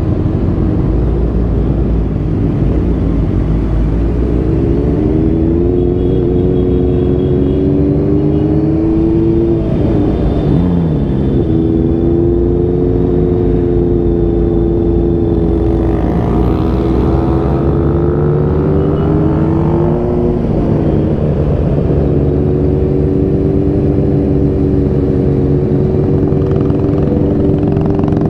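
Motorcycle engine running under way over a heavy low rumble, its pitch rising and falling with speed and dropping sharply twice before climbing again.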